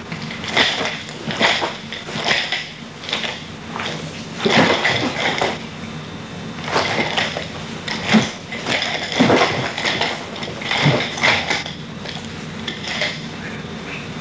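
Nunchaku swung through a kata: a string of irregular swishes and clacks from the sticks, about a dozen over the stretch, some in quick pairs.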